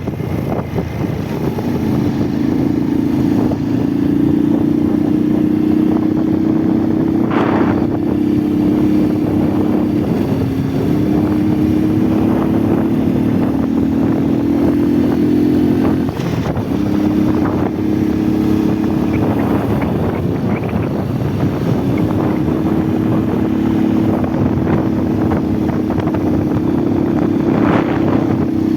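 Motorcycle engine running steadily while riding, its pitch stepping up and down a few times, with a short dip about halfway through.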